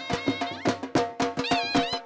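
Traditional folk music: fast, steady drum strokes under a high, wavering melody line.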